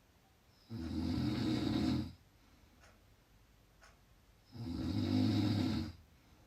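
A person snoring loudly: two low-pitched snores about four seconds apart, each lasting about a second and a half.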